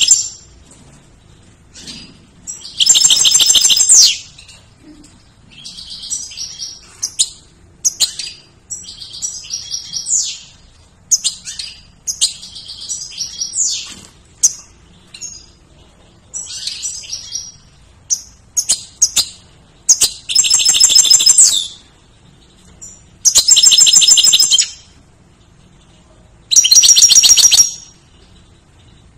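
European goldfinch singing: quick twittering phrases broken by four longer buzzy trills, each about a second or more long.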